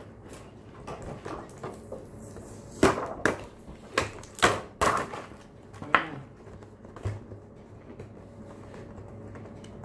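Cardboard L.O.L. Surprise! O.M.G. doll box being handled and turned over: a run of sharp taps, knocks and scrapes against the box, most of them between about three and six seconds in.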